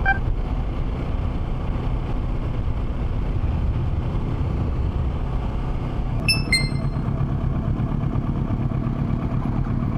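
Kawasaki Ninja 650's parallel-twin engine running at a steady pace, a continuous low rumble. Two short high chirps sound about six seconds in.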